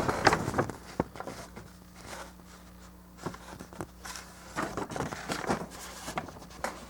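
Scattered light taps and rustles of things being handled on a tabletop, over a faint steady hum.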